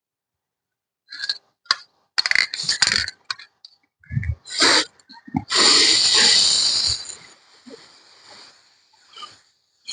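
Aerosol spray paint can spraying in one long hiss of about a second and a half, about halfway through, preceded by a few short handling knocks and rustles.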